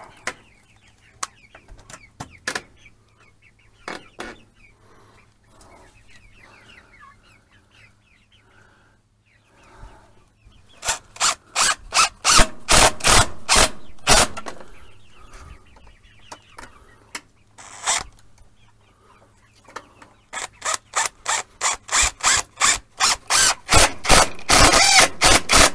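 Hammer blows on wood: two runs of sharp, rapid strikes at about four a second, one starting about eleven seconds in and a longer one from about twenty seconds on, while the roost is being built.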